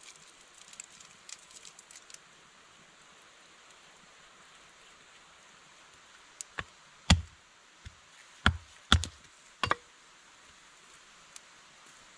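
A quick run of about six sharp knocks and cracks over some three seconds, starting a little past the middle, as firewood is broken and handled at a small campfire. Faint crackles come in the first couple of seconds.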